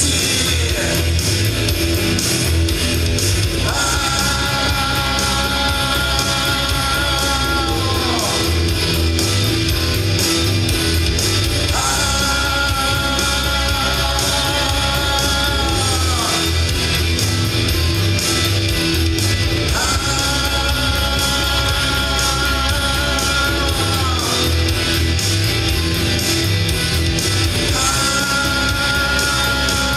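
Loud live rock music: electric guitar with drums and a male voice singing, long held notes coming about every eight seconds.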